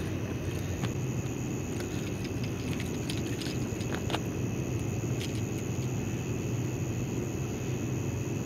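Steady low rumble with a constant high hiss, broken only by a few faint clicks.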